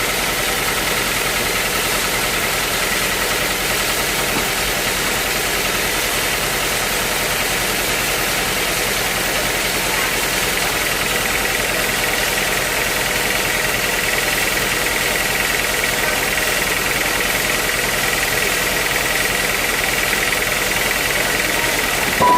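Sawmill machinery running steadily, a constant engine-like drone with a high steady whine, and one short click near the end.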